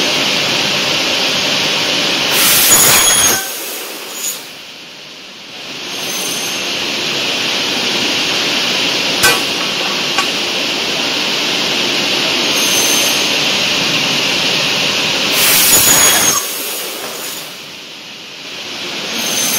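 Automatic aluminium profile cutting saw running with a steady high whine. Twice, about two seconds in and again near the end, the blade cuts through an aluminium solar panel profile in a loud, harsh burst about a second long, after which the machine goes quieter for a second or two before picking up again. Two sharp clicks come in the middle.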